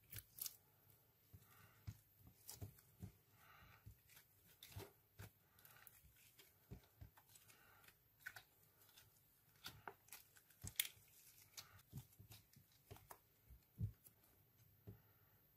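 Faint, sticky slime sounds: irregular little clicks, pops and soft squelches as fluffy and clear glitter slime are pressed, stretched and pulled apart by hand in a glass dish.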